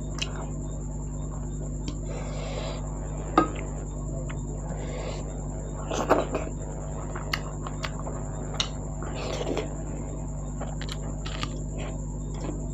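Close-up eating sounds of a mukbang meal of dhido and goat meat: wet chewing and mouth noises with scattered clicks of dishes, the sharpest about three and a half seconds in, over a steady electrical hum.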